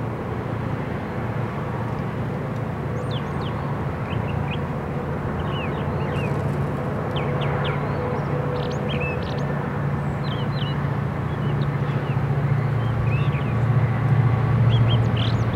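Low, steady rumble of distant diesel locomotives, a Union Pacific local led by SD40Ns, slowly growing louder as the train approaches. Small birds chirp over it.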